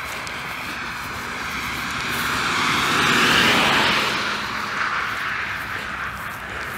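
A car passing on the road alongside, its tyre and engine noise swelling to a peak a little past the middle and then fading away.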